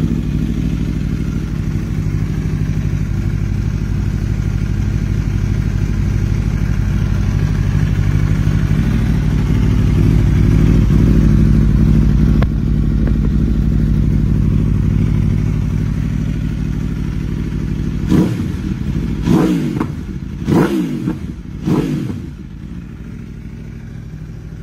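2021 Aprilia RSV4 Factory 1100's V4 engine idling through an Akrapovič exhaust, then revved in four quick throttle blips about eighteen to twenty-two seconds in, each rising and dropping back, before it settles to a quieter idle.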